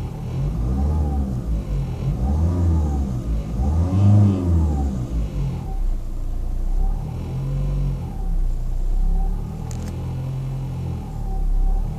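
Ford Fiesta Mk7 engine revved up and down three times in the first five seconds, then running more steadily with milder swells in revs, with a sharp click about ten seconds in. The car has a strange noise whose cause the owner does not know.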